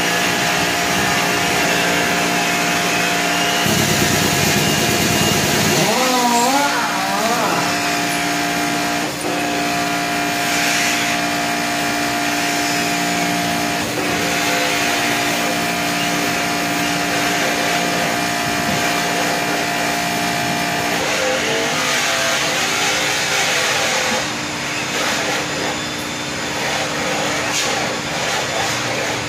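Steady machine motor hum with several held tones, its pitch wavering briefly about six seconds in and again after about twenty seconds.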